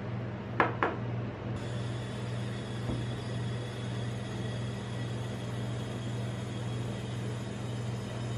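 Steady low hum of a rolled-ice-cream machine's refrigerated cold plate running, with two sharp clicks less than a second in.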